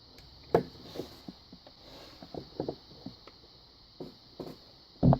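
Scattered clicks and knocks of tools and a lock being handled and set down on a work surface while a screwdriver is looked for. There is one sharp knock about half a second in, a few light clicks in the middle and two heavier knocks near the end.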